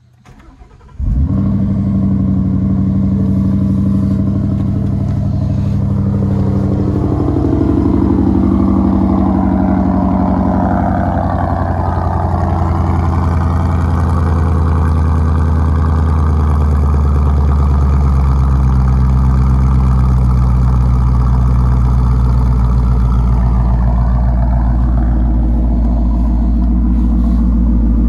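Ford Mustang Shelby Terlingua's V8 starting suddenly about a second in, then idling. Its note shifts over the first several seconds and then settles into a steady, deep idle.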